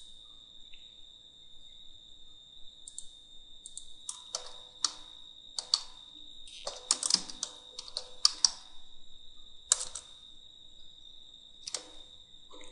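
Typing on a computer keyboard: irregular runs of key clicks, busiest in the middle of the stretch, with a faint steady high whine underneath.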